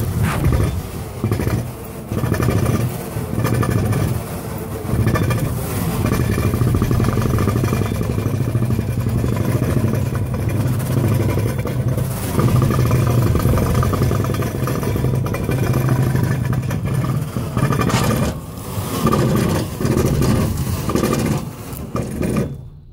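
Industrial machine with spinning rolls running loudly: a steady low drone with a fast fluttering rattle. It dips briefly a few times and drops away at the very end.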